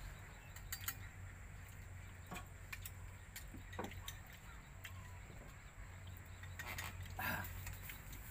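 Scattered light clinks and taps of spoons and chopsticks against bowls as people eat, over a low steady hum.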